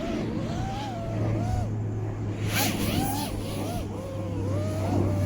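Brushless motors of a 5-inch FPV quadcopter (T-Motor Velox 2207 2550KV) whining, the pitch rising and falling over and over as the throttle changes during freestyle flying. Heard from the action camera on board, with a short rush of wind noise about two and a half seconds in.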